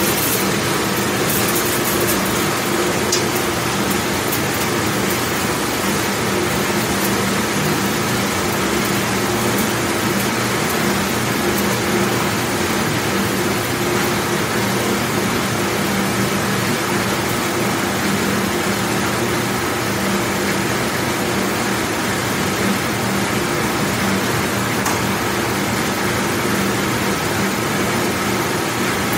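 Large commercial dishwashing machine running steadily: an even rushing noise with a constant hum under it.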